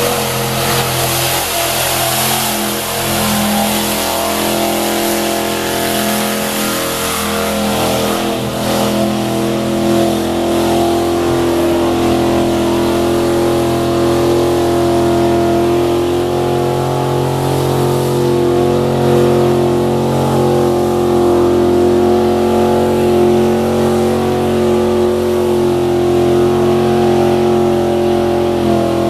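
Engine of a lifted mud-bog pickup held at high revs as the truck churns through a deep mud pit, tyres spinning and throwing mud. There is a spraying hiss over the engine for the first several seconds. After that the engine stays at a high, almost steady pitch while the truck bogs down and barely moves.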